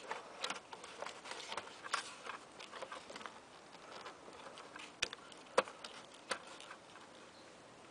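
Irregular clicks, taps and scrapes of a motorcycle's plastic body panel being worked loose by hand around the turn-signal mount. There are two sharper snaps about five seconds in.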